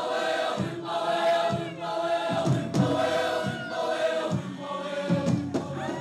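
Large group of Tongan schoolboys singing and chanting together in unison, in short phrases with brief breaks between them.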